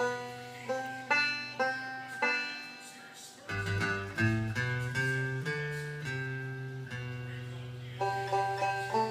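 Background music: a plucked-string instrumental tune, single notes struck and fading, over held low bass notes.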